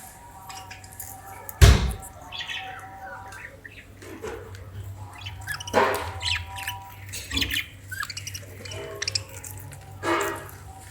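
Pet parrot squawking and chirping in short, scattered calls, with harsher squawks about six and ten seconds in. A loud thump about two seconds in is the loudest sound.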